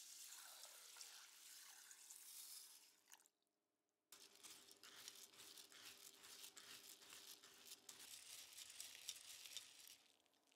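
Water poured over raw green buckwheat groats in a stainless mesh sieve, stopping about three seconds in. After a short gap, a wooden spoon stirs the wet groats in the sieve, a quiet swishing with a rapid run of small clicks from the grains and the mesh.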